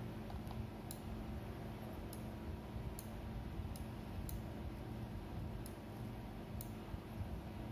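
Computer mouse button clicking, about eight sharp clicks at irregular spacing, each click starting or ending a drawn stroke. A low steady hum runs underneath.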